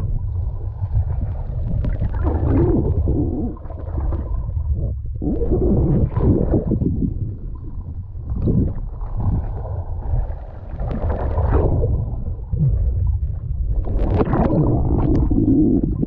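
Water heard from inside an underwater camera housing: a steady, muffled low rumble with uneven swells of sloshing, gurgling water noise as the diver moves.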